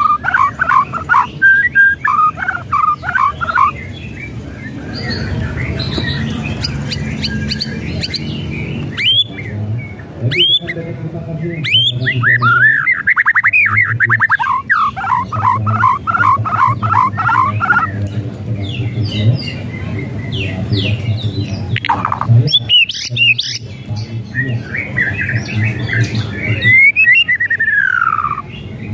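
White-rumped shama singing in a cage: fast runs of chattering notes mixed with harsh rattling calls and whistled notes that slide up and down, one long falling whistle near the end.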